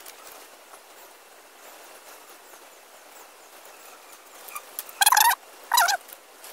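Two short, loud bird calls with a wavering pitch about five seconds in, over faint background hiss and faint distant bird chirps.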